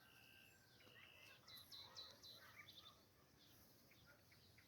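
Faint bird calls: a few short whistles and quick chirps in the first three seconds, then only a low background hiss.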